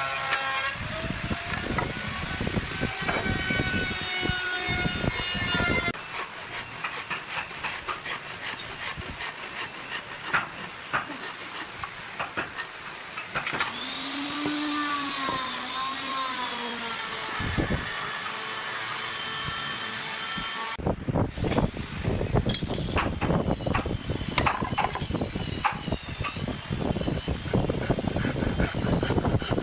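Electric woodworking power tools running and working wood, in separate bursts that change abruptly about 6 and 21 seconds in. In the middle, a motor's whine rises and then falls.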